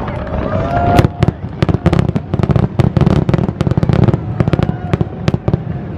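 Fireworks going off in a rapid series of sharp bangs and crackles, thickest in the middle seconds.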